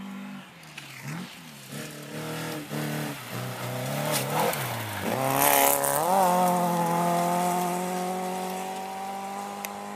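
A rally car on a special stage approaches at speed, its engine note rising and dropping again and again as it comes closer. It is loudest with a rush of noise as it passes close by about five or six seconds in. Then it pulls away on one steady, high engine note that gradually fades.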